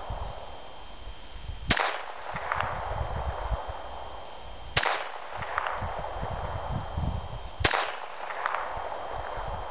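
Three single .22 rimfire pistol shots from a Ruger Mark III, fired slowly about three seconds apart, each sharp crack followed under a second later by a fainter crack.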